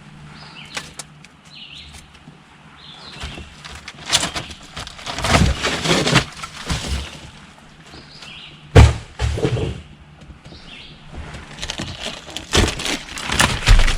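Irregular cracking, knocking and clattering of material being broken and handled, with the loudest sharp bang about nine seconds in.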